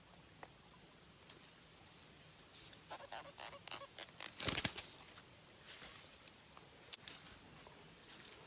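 Steady high-pitched calls of insects such as crickets, holding two tones. About three seconds in comes a short run of rustles and knocks, ending in a sharp thump at about four and a half seconds, the loudest sound.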